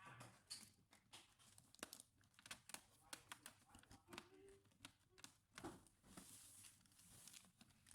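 Faint scattered clicks and light rustling of hands handling a laptop and its small plastic and metal parts during a RAM upgrade.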